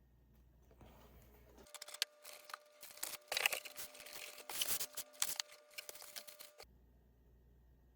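Packaging being torn open and crinkled by hand: a run of irregular crackling and ripping noises that starts abruptly about two seconds in and stops abruptly near the end, with low room hum around it.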